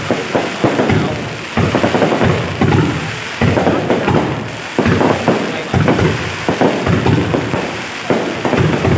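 New Year fireworks bursting overhead: a string of bangs about every second, each trailing off.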